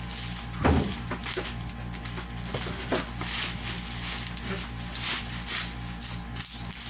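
Scissors cutting open a parcel's plastic and bubble-wrap packaging: a knock about a second in, then rustling and snipping of the plastic. Quiet background music plays throughout.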